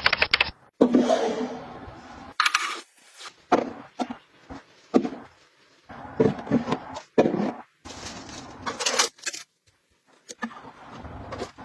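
A quick run of short household handling sounds: items being scraped, rustled, picked up and set down one after another, with sudden cuts between them.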